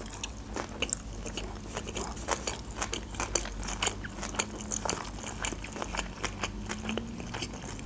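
A mouthful of sushi roll being chewed close to the microphone, heard as many small, irregular mouth clicks and smacks.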